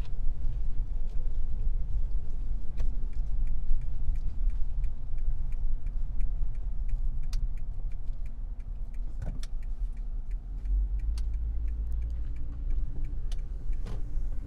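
Vehicle driving slowly, heard from inside the cab: a steady low engine and road rumble with light clicks and rattles throughout.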